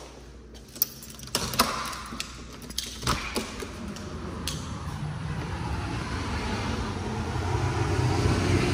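An exterior house door being unlatched and swung open: several clicks and knocks from the knob and latch in the first few seconds, then a steady rushing noise that grows louder toward the end.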